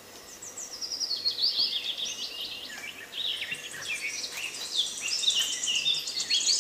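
Songbirds chirping and singing: many quick, high, falling notes, with a rapid high trill starting near the end.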